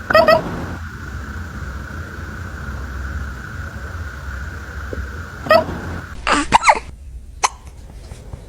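Kitten hiccuping: one short, sharp hiccup right at the start, then a quick run of about five more from about five and a half seconds in.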